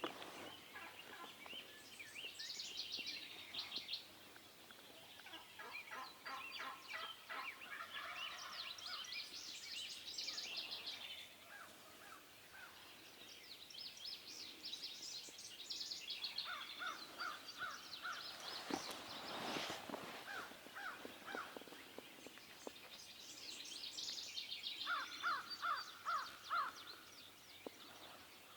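Wild turkeys gobbling and calling, with songbirds singing over them. A run of short, evenly spaced calls comes twice: past the middle and again near the end.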